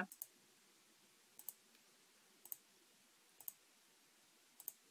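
Computer mouse button clicking, five faint clicks about a second apart, some heard as a quick double tick.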